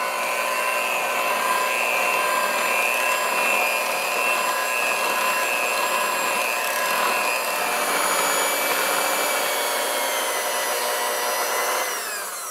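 Electric hand mixer running steadily, its beaters churning thick cake batter in a glass bowl: a motor whine over a churning hiss. Near the end it is switched off and winds down with a falling whine.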